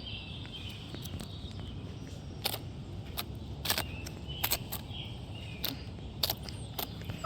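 A hen pecking, her beak tapping sharply on a hard surface about seven times at irregular intervals over the last five seconds, as she eats or wipes her beak clean, with faint high chirps in the background.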